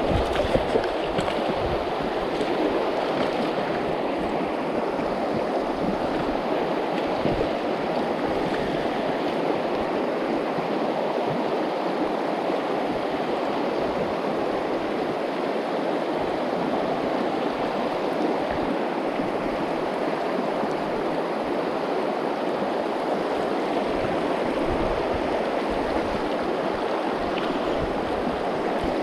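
Steady rush of a mountain trout river, the Najerilla, flowing without a break.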